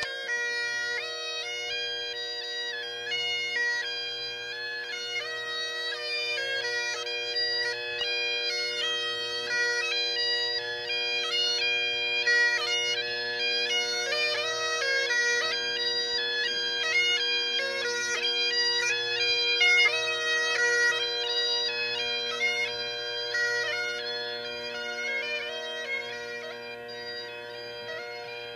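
Great Highland bagpipe playing a tune as a camp wake-up call: steady drones under a chanter melody with quick grace notes, louder through the middle and fading somewhat near the end.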